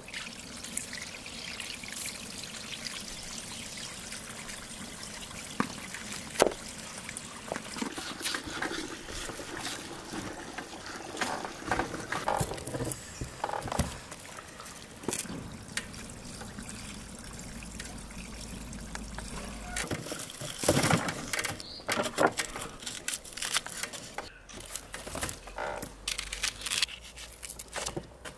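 Cloudy water poured off a round metal tray onto a stone slab, running and trickling. Later, a knife cutting meat from a beef leg on a metal tray, with scattered short knocks and scrapes.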